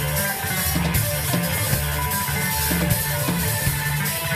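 Live progressive rock band playing: drum kit, electric bass and electric guitar together, with the bass repeating short low notes under the drums.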